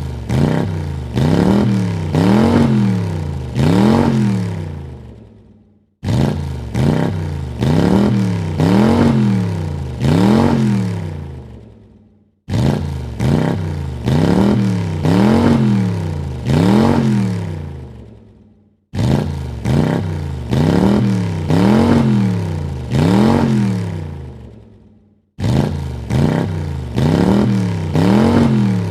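A car engine revved in quick blips, three or four rising-and-falling revs about a second and a half apart, each burst dying away. The same short rev recording repeats about every six seconds.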